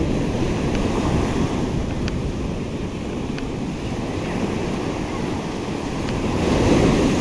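Sea surf breaking and washing up a sandy beach, with wind rumbling on the microphone. A wave swells to its loudest shortly before the end.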